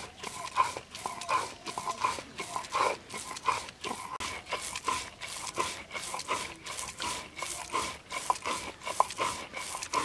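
Stone roller grinding wet spice paste on a flat stone slab (shil-nora), in rhythmic back-and-forth scraping strokes of about three a second.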